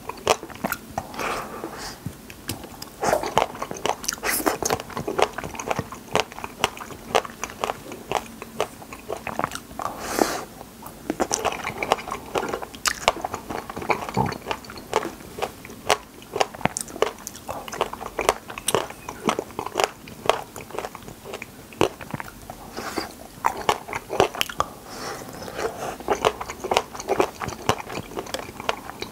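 Close-miked biting and chewing of candy-coated wild raspberries on skewers: crisp crunches of the hard sugar shell, several a second, over wet, juicy chewing.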